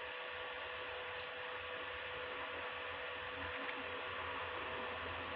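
Steady background hum and hiss with a couple of faint steady tones, unchanging throughout: electrical hum or room tone.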